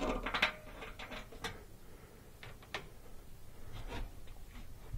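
Scattered metal clicks and knocks from the replacement blower motor and its mounting arms being handled and seated in the air handler's blower housing, the loudest cluster at the start.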